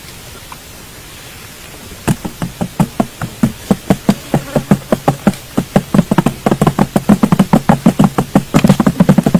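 A rapid series of sharp knocks or taps starting about two seconds in, about six a second, growing louder toward the end.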